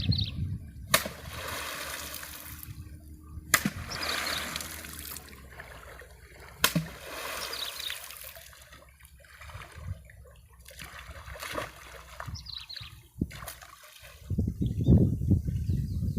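Water splashing: a few sharp splashes a few seconds apart, each trailing off in a second or so of hiss. A louder low rumble comes near the end.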